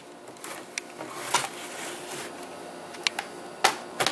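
Plastic screen bezel of a Dell Studio XPS 1645 laptop being pried off by hand, giving about half a dozen sharp plastic clicks and snaps as it comes away from its double-stick tape.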